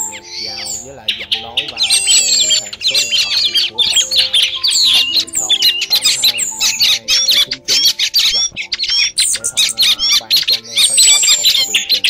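A dense chorus of thrush calls: many overlapping short chirps, whistles and squeaky notes with no pause. Background music with held notes is mixed in underneath.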